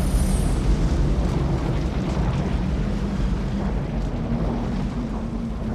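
Film sound effects: the low, dense rumble left after an explosion, slowly fading. A faint steady hum comes in about four seconds in.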